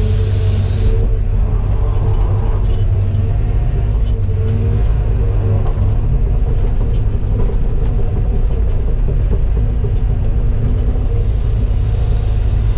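Diesel engine of a tracked heavy machine running at a steady speed, with scattered light clicks and clanks over the drone.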